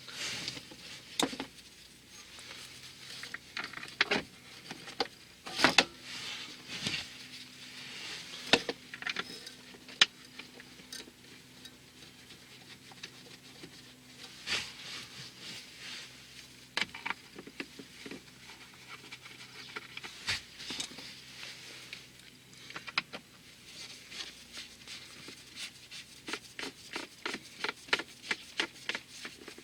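Irregular clicks, taps and rubbing from hands handling parts during a car blower motor replacement, growing into a quick run of clicks near the end. A faint steady low hum sits under the middle stretch.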